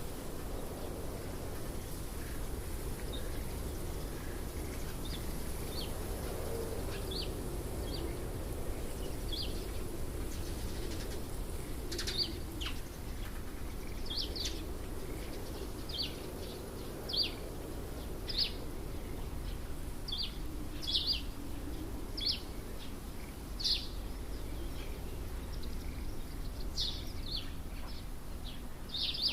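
A bird calling in short, high chirps repeated every second or two, faint at first and louder from about halfway through, over a steady low background rumble.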